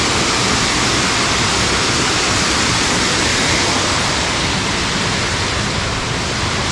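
Waterfall: water pouring down in a loud, steady rush.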